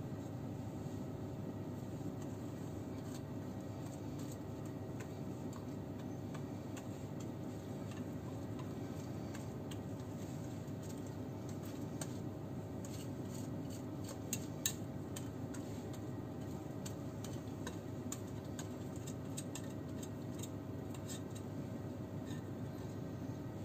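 A steady low hum with scattered light clicks and taps of a whisk and mixing bowl while thick cake batter is poured into a metal baking pan. The clicks come thicker in the second half, with one sharper tap a little past the middle.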